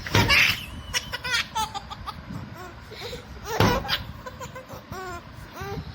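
A baby laughing in short, repeated bursts, with a loud burst of laughter near the start and another about three and a half seconds in.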